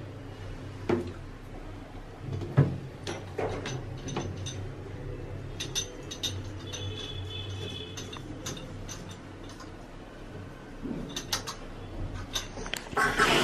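Light metallic clicks and taps as the threaded nut of a flexible toilet-cistern supply hose is hand-tightened onto a chrome angle valve. Near the end water starts rushing through as the valve is opened.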